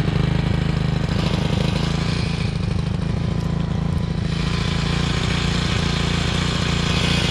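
Small outboard motor on an inflatable boat running steadily at low trolling speed.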